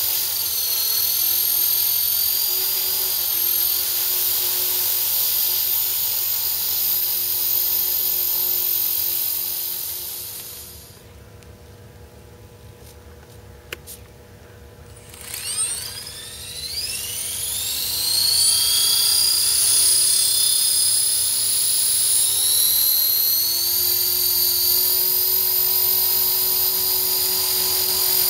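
EXI 450 Pro electric RC helicopter's brushless motor and rotor running with a high whine. About ten seconds in, the whine dies away for a few quiet seconds, broken by a single click. Then the motor spools back up with a rising whine that climbs once more before holding steady.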